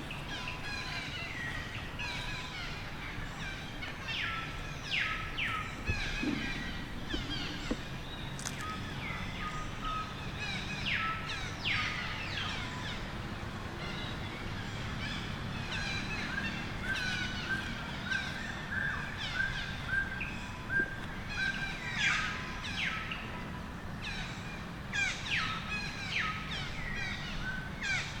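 Birds chirping: many short, quick falling chirps and a few held high notes, scattered throughout over a steady background hiss.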